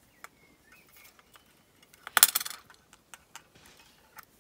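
Fine copper weaving wire being wrapped by hand around two thicker copper wires: light ticks and clicks of wire against wire, with a brief rasping scrape about two seconds in that is the loudest sound.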